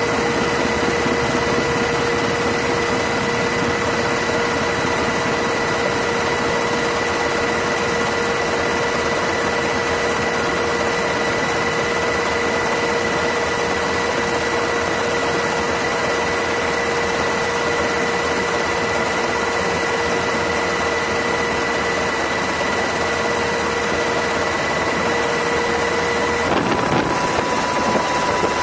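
Steady helicopter engine and rotor noise heard from inside the aircraft, a constant rushing with a steady whine on top. The whine changes pitch and the noise turns rougher near the end.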